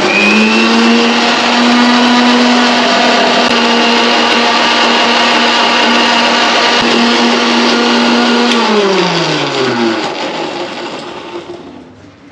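Old electric mixer grinder running at full speed, grinding ginger, garlic and green chillies into a wet paste. It is switched off about eight and a half seconds in, and its motor whine falls in pitch as it spins down and fades.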